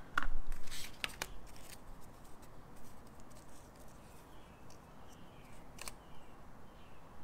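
Small clicks and a light rustle of a pack of double-edged razor blades being handled, loudest in the first second or so. Faint scattered rustles follow, with one sharp click about six seconds in.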